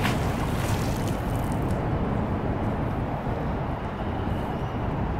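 Steady low rumble of motorway traffic passing overhead, with a fishing magnet splashing into the canal right at the start and drops of water falling back for about a second and a half.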